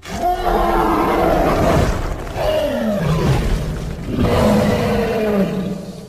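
Designed Deinotherium creature vocalization, mixed from animal recordings such as elephant, walrus, boar and bear: three long, low calls, the middle one falling in pitch, fading out near the end.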